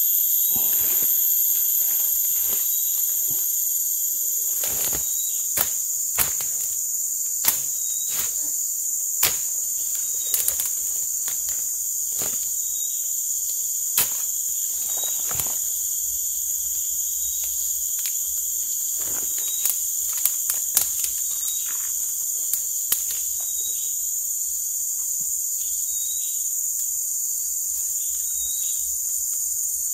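Steady high-pitched chorus of forest insects, with a dozen or so sharp clicks scattered through it, most of them in the first two-thirds.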